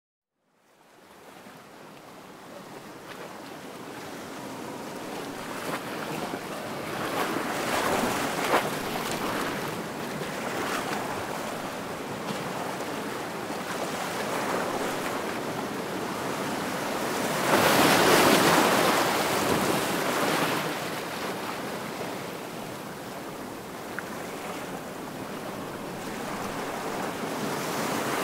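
Ocean surf washing and breaking, rising and falling in slow surges with the biggest surge about two-thirds of the way through; it fades in at the start.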